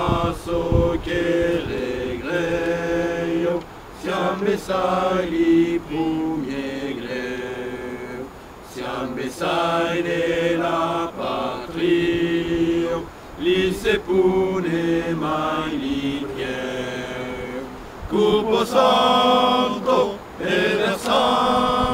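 Men's voices singing together, a slow song of long held notes with short breaks between phrases.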